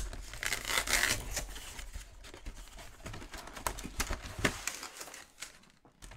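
A cardboard Pokémon card collection box and its packaging being handled and opened: rubbing and rustling with scattered sharp clicks. It is busiest in the first second or so and thins out near the end.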